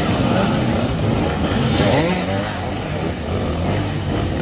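Several dirt bike engines running and revving at once, their pitch blipping up and down around the middle.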